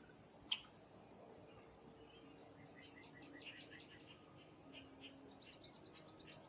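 Faint calls of small wild songbirds. One sharp chip comes about half a second in, then a rapid series of high chirps, then a second series pitched higher.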